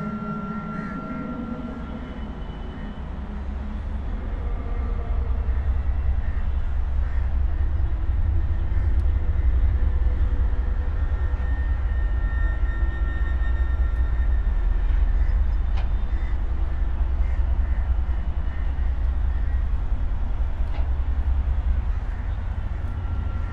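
A deep, steady low rumble that swells over the first few seconds and then holds, with faint thin tones drifting above it.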